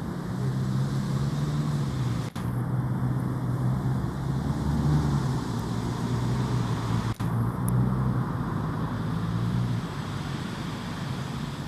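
A motor vehicle's engine running steadily, a low hum whose pitch shifts a little, with two very brief drop-outs.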